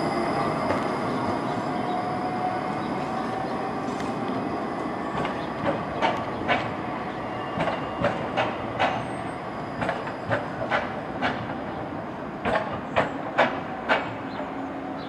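Škoda low-floor electric tram pulling away, its drive giving a steady whine. Over the second half its wheels clack sharply, about fifteen times, as it runs over rail joints and points.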